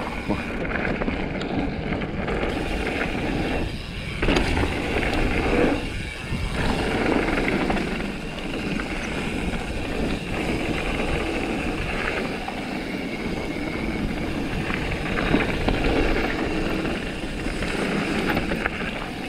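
Mountain bike riding down a dirt trail: a steady rushing noise of tyres and air, with many small clicks and rattles from the bike over rough ground, rising and falling in loudness.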